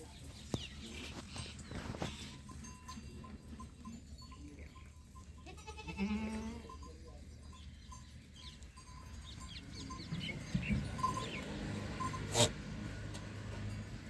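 Goats bleating in a pen, one loud quavering bleat about six seconds in and more bleats around ten seconds. A sharp knock comes just after twelve seconds.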